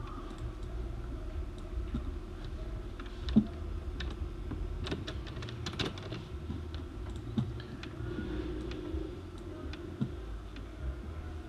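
Irregular clicking and tapping of a computer keyboard and mouse, over a low steady background hum.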